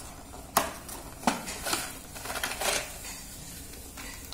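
Cardboard box flaps and a black plastic packaging tray being handled while the box is opened and the tray lifted out: a few sharp clicks and rustles in the first three seconds, then quieter.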